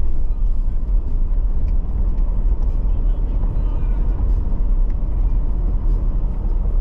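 Inside a vehicle's cabin while driving over a sandy dirt track: a steady low rumble of engine and tyres, with light scattered clicks and rattles.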